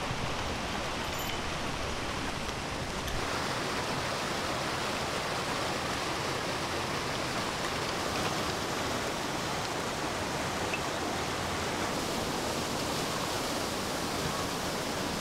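Steady rushing of flowing water from a river or stream; its low rumble drops away about three seconds in.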